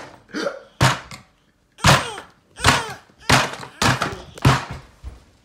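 Mallet blows on a tabletop pile of plastic action figures and toy trucks: a string of about six hard thunks at an uneven pace, with a short pause after the second one.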